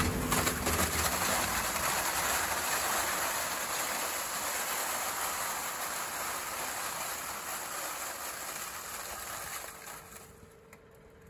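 A load of scallops pouring off a tipped truck bed into a steel wire-mesh basket: a dense, continuous rattling clatter of shells on shells and on the wire. It thins out and fades over the last second or so.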